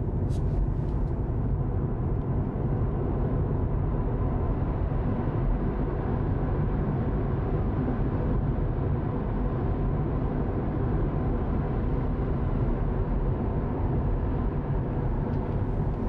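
Steady road and wind noise heard inside the cabin of a 2021 Tesla Model 3 with double-glazed front windows, driving at about 60 mph. It is a constant low rush of tyre and air noise with no engine note.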